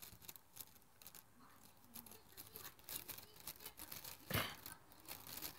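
Cat licking a plastic bag: faint, irregular crinkling and rasping of its tongue on the plastic, with one louder crinkle about four seconds in.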